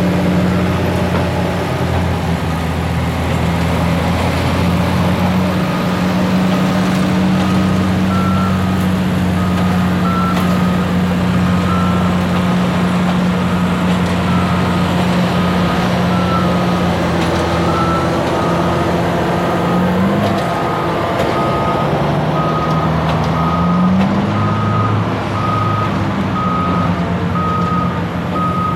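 Diesel locomotive engine running loud and close, its note rising about two-thirds of the way through and again near the end as the throttle is opened. A bell rings steadily over it, about once a second.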